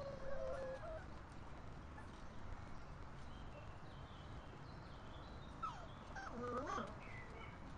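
Cocker spaniel puppies whimpering and squeaking: a short whine in the first second, faint high squeaks in the middle, and a louder whining cry that slides up and down in pitch about six to seven seconds in.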